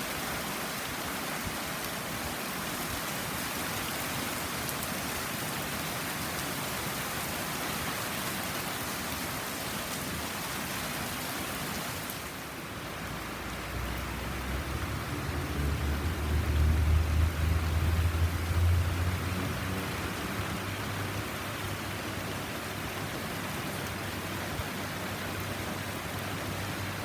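Heavy tropical rain pouring down steadily. A little past the middle, a deep low rumble swells up and fades away over several seconds.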